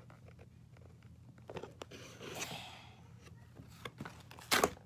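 Cardboard packaging handled and pulled apart: scattered light clicks and scrapes, a longer scraping rustle about halfway through, and a loud short crunch near the end, as a boxed toy is worked out of its cardboard shipping box.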